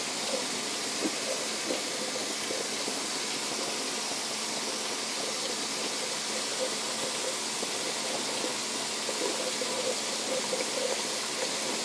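Steady sizzling of a butter-and-flour roux being stirred in a pot, the first stage of a white sauce, with ground beef browning in a second pan; small pops and spatters throughout.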